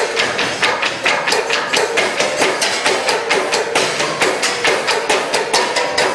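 Rhythmic percussion: a fast, even run of sharp knocks, several a second, over a faint held tone.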